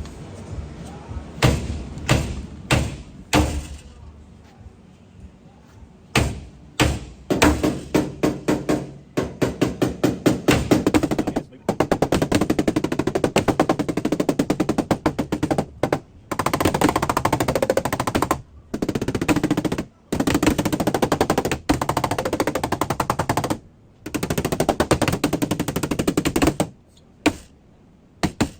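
Paintless dent repair hammer and knockdown tapping on the truck's sheet metal, knocking down a crown and blending the panel. A few separate taps at first, then faster and faster, then long runs of rapid tapping with short pauses.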